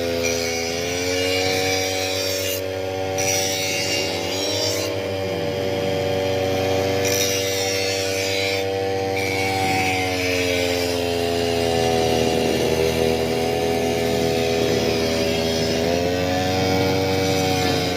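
Petrol brush cutters (grass-cutting machines) running at high speed, a steady engine whine that dips and rises slightly in pitch as the throttle and load change, briefly dropping about half a second in and again about ten seconds in.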